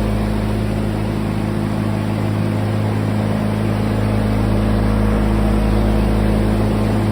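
A steady, unchanging mechanical drone with a low hum, like a motor or engine running.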